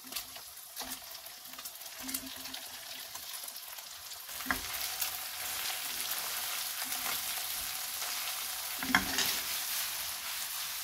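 Ground pork, squid and vegetables sizzling in a nonstick wok as they are stir-fried, a steady hiss that grows slightly louder and steadier about halfway through. A few sharp knocks and scrapes sound as the food is stirred with chopsticks, the loudest about four and a half and nine seconds in.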